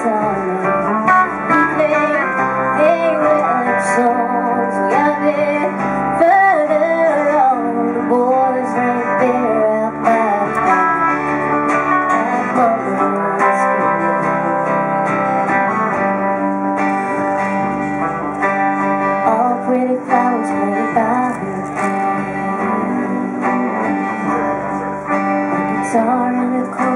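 A woman singing a song live into a microphone, accompanying herself on guitar.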